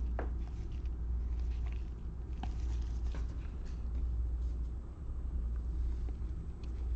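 A steady low hum, with faint scattered clicks and light rustles of trading cards being handled and flipped.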